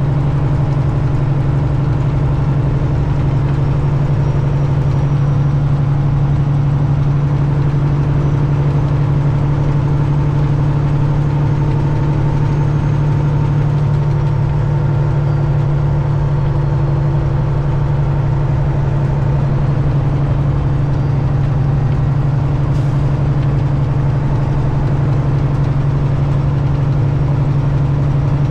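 Detroit Diesel engine of a Peterbilt 379 big rig running at a constant speed: a steady, unchanging low drone.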